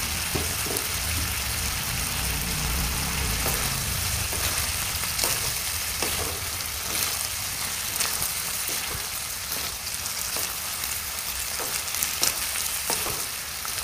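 Yardlong beans, egg and onion sizzling as they are stir-fried in a pan, with scattered taps and scrapes of a wooden spatula stirring them.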